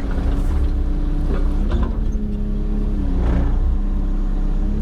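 Excavator engine running steadily under working load while clearing brush, its pitch shifting a little around the middle. A few short cracks or clunks sound over it.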